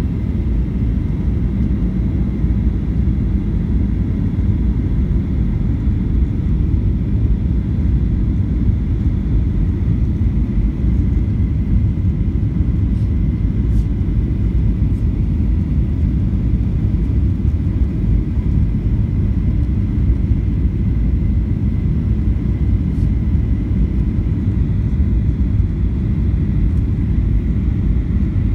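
Steady low rumble of engine and airflow noise inside the cabin of a Boeing 737 on approach with flaps extended, with a faint steady high whine over it.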